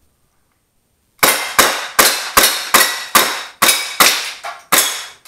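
Rapid string of about nine shots from an airsoft pistol, starting about a second in at roughly two and a half shots a second. Each sharp crack trails off in a short ring.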